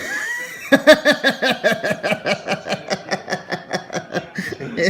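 Hearty laughter in fast, rhythmic ha-ha pulses, about five a second, that keeps going for several seconds after a joke's punchline.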